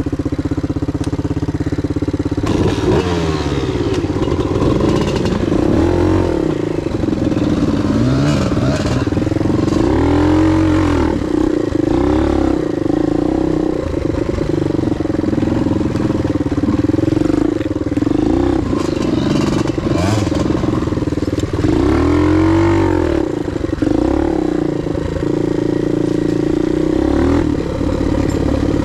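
Suzuki DR 125 trail bike's single-cylinder four-stroke engine running at low to middle revs, the revs rising and falling again and again as the bike is ridden over rough ground, with some clatter from the bike.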